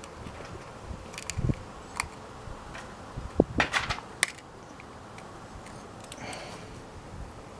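Small metal pick clicking and scraping inside the oil filter adapter housing of a Harley-Davidson Sportster 1200 while working at a stuck oil-pressure check ball and spring. Scattered light clicks, with a quick cluster of sharper clicks about three and a half seconds in.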